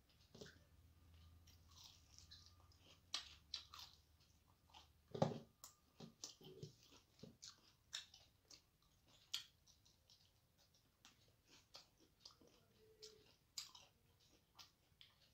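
Faint close-up eating sounds: a person chewing soft rice with mouth smacks while her fingers mix rice on a metal plate. The sounds come as a scatter of short, irregular clicks and smacks, the loudest about five seconds in.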